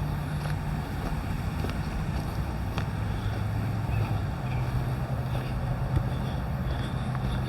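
Wind rumbling on the microphone over a steady low hum that steps up slightly in pitch about halfway through.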